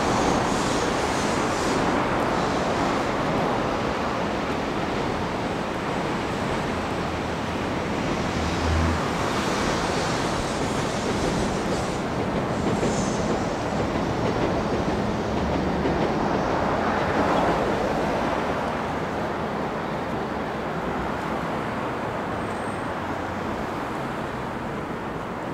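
Train running on rails: a continuous rumble and rush that swells and eases several times.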